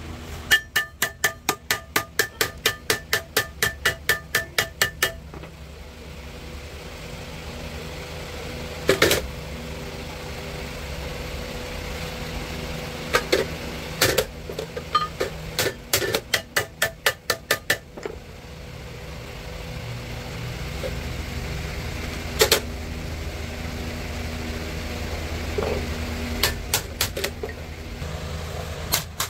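Hammer striking metal with a ringing clang: a fast run of about five blows a second at the start, another run in the middle, and a few single blows in between, over a steady low hum.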